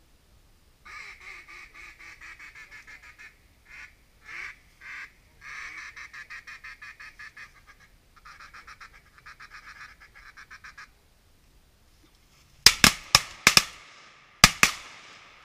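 Duck call blown in rapid runs of quacking chuckles, broken by a few single drawn-out quacks. Near the end comes a quick volley of shotgun shots, about four in under a second, then one more a second later. The shots are much louder than the calling.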